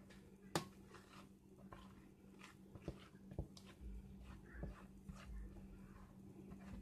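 Quiet handling sounds while thick batter is poured from a mixing bowl into a metal loaf pan: a steady low hum, a few light clicks and taps (the sharpest about half a second in), and a soft low rumble from about halfway.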